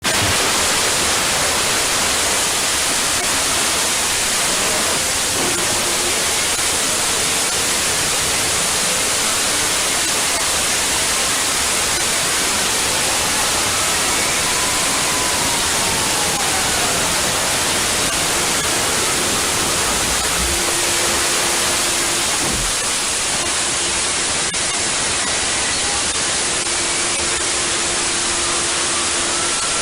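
Loud, steady static hiss of an edited 'punishment' sound effect, with faint gliding tones and a few short held tones buried under the noise.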